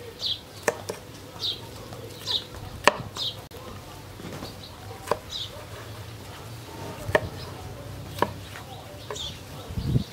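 Steel cleaver chopping green bell pepper on a wooden cutting board: sharp single knocks of the blade hitting the board at irregular intervals, about seven in all. A bird chirps repeatedly with short high calls in between.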